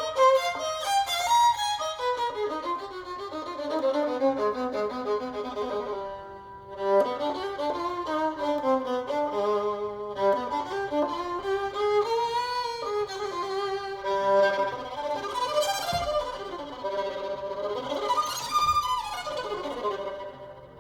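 Violin playing a melody with sliding notes between pitches.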